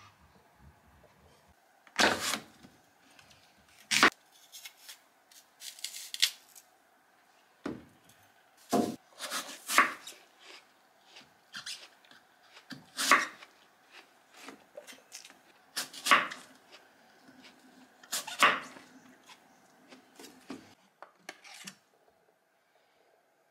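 Kitchen knife slicing an apple on a wooden cutting board: a series of sharp knocks as the blade meets the board, every two to three seconds and sometimes several in quick succession, over a faint steady hum. The knocks stop near the end.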